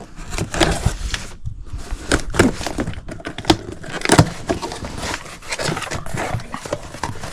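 A cardboard shipping box being opened and unpacked by hand: irregular rustling, scraping and tearing of tape and packing.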